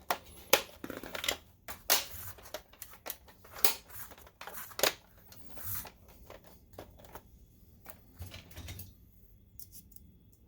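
Plastic top cover of a DLP projector being set onto the chassis and pressed into place: a run of irregular clicks and knocks of plastic on plastic, which thin out after about nine seconds.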